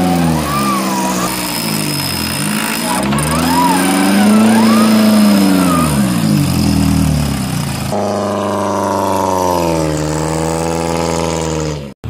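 Off-road 4x4's engine revving up and falling back repeatedly under load. About two-thirds of the way through, the sound cuts abruptly to a steadier engine note that dips slightly and recovers.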